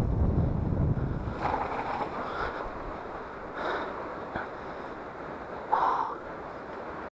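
Wind buffeting the microphone of a camera on a moving mountain bike, loud at first and dying away as the bike slows to a stop. A few short higher-pitched sounds come through, the loudest near the end.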